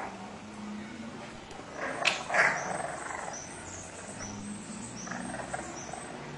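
Puppies growling low and steady at play, with a louder sharp yelp about two seconds in.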